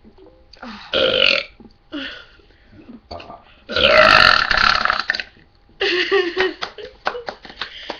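A person belching loudly several times in a row. The longest and loudest belch comes about four seconds in and lasts about a second and a half.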